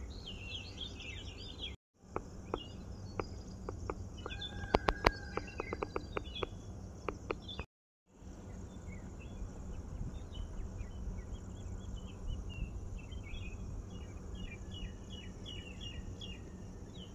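Outdoor ambience of birds chirping and calling over a low steady rumble. A run of sharp clicks and short notes comes about four to seven seconds in, and the sound cuts out to silence twice, briefly.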